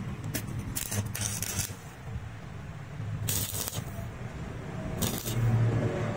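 Stick (arc) welder striking short tack welds on a steel wrench: three brief bursts of arc crackle and hiss, about a second in, around the middle and near the end, over a steady low hum.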